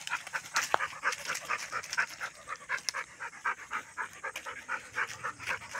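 Dog panting quickly and rhythmically after running and playing, about four to five breaths a second.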